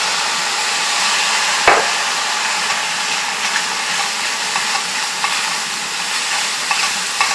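Chopped vegetables and mushrooms sizzling hard in a hot pan as liquid is added to deglaze the caramelized, sticking bottom. A spoon stirs and scrapes, with one sharp knock against the pan about a second and a half in.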